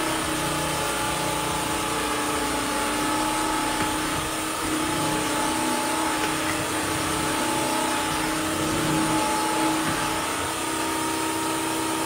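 Bissell CrossWave Cordless Max wet-dry vacuum running steadily as it scrubs and sucks up a milk spill on a hardwood floor. Its motor whines at an even pitch under a hiss of suction.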